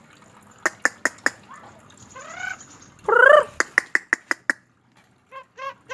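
Javan myna calling in a run of varied sounds: a few sharp clicks, a rising whistled note, then a loud drawn-out call just after three seconds. More clicks follow over a held whistle, and near the end comes a quick series of short repeated notes.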